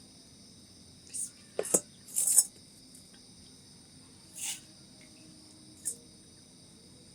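A handful of short, sharp clatters, several in quick succession about two seconds in and single ones later, over a steady high-pitched chirring like crickets.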